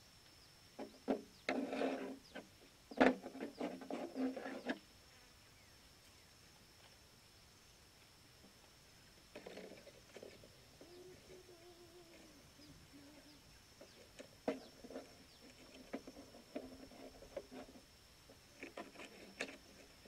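Hands handling a clear plastic container, bamboo sticks and rubber bands: bursts of small clicks, taps and rustles, with a short wavering pitched sound near the middle. A thin, steady high whine sits underneath.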